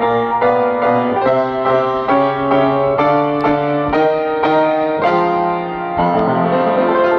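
Solo piano improvising in a jazz style, striking a steady run of chords a little under half a second apart, then letting a chord ring from about six seconds in.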